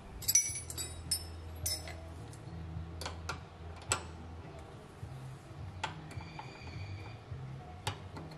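Steel combination wrenches clinking together and ringing as they are picked up, then single sharp clicks of the wrenches against the parking brake cable's threaded adjuster, over a faint steady low hum.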